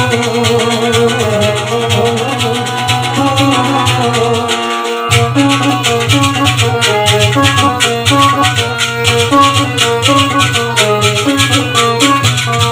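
Instrumental folk music: a melody instrument playing over a low drone, with rattling percussion keeping a steady beat.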